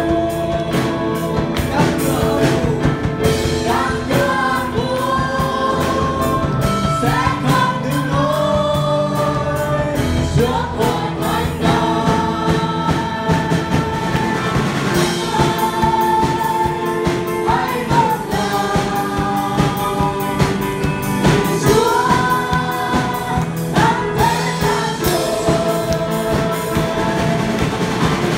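A Vietnamese Protestant hymn sung by a woman and a man into microphones, backed by a live band of drum kit, electric guitars and keyboard.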